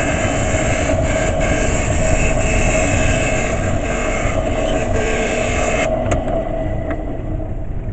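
Benchtop scroll saw running and cutting thin plywood, a steady noise of the reciprocating blade. About six seconds in, the higher cutting noise stops as the blade comes out of the wood, and the saw keeps running.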